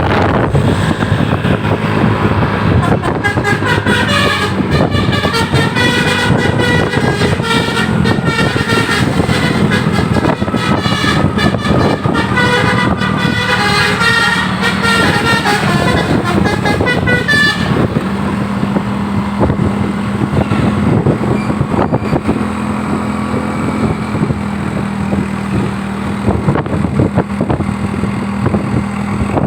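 Tour bus's telolet horn, a multi-tone musical air horn, playing a rapid tune of changing notes over the bus's running diesel engine. About eighteen seconds in the horn stops, leaving the engine and traffic noise.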